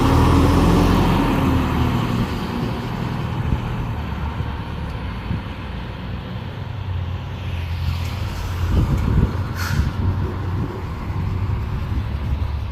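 Fire truck engine rumbling close, its pitch dipping slightly as it fades after a second or two, with low engine rumble going on after it. A brief hiss about ten seconds in.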